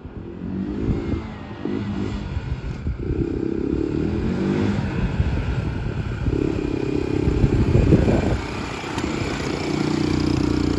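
A 1994 sport ATV's engine running and revving up and down repeatedly as the quad rides up close.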